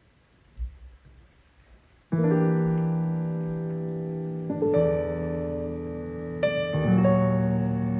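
Near silence with one soft low thump, then piano music starts about two seconds in: slow held chords that change every second or two.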